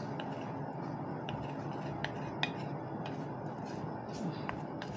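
A few light clinks of dishes and a utensil as thick rendang sauce is poured from one bowl onto a bowl of macaroni, over a steady background hiss.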